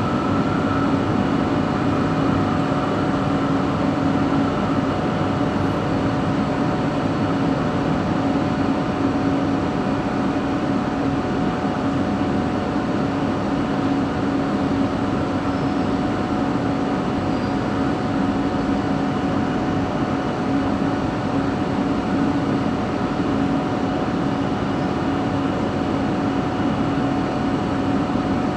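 LRT train set 70 running at a steady speed, heard inside the coach: even running noise with a steady droning tone from the traction motor, the weird motor noise that comes from coach 4.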